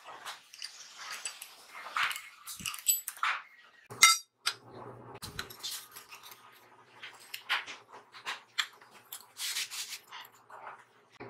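Steel parts clinking and clanking as they are handled and set against a bench vise, with one sharp ringing metallic clang about four seconds in and scattered lighter knocks after it.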